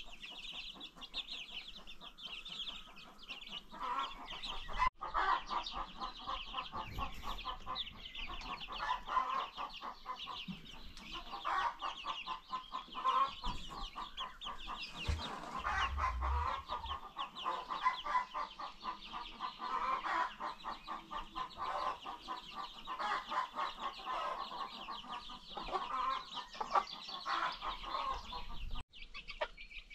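A flock of baby chicks peeping in a continuous high chorus, with lower, rapid chicken clucking throughout.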